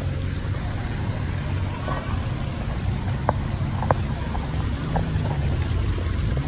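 Steady low outdoor rumble of street traffic and wind on the microphone, with two sharp clicks a little after three and about four seconds in.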